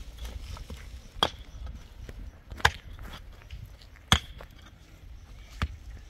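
Pickaxe striking stony soil, four blows about a second and a half apart, the middle two the loudest, with fainter knocks of loosened stones in between.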